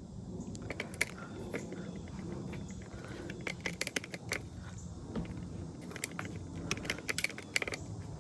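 Handling noise from assembling a metal-pole animatronic prop frame: clusters of short clicks and light metallic rattles as poles and fittings are handled, over a steady low background noise.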